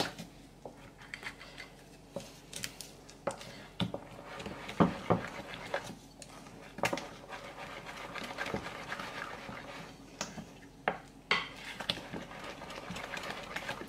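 Wooden spoon stirring thick pancake batter in a glass bowl, beating out lumps: soft wet scraping with irregular knocks of the spoon against the glass.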